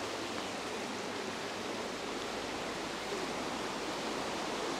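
Steady rush of water from a brook running high after heavy rain.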